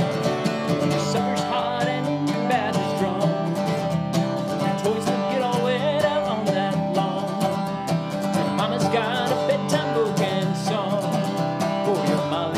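Instrumental break: a lap-played resonator guitar takes a slide lead of wavering, gliding notes over a strummed acoustic guitar.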